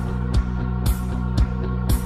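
Background music with a steady drum beat over a bass line, about two beats a second.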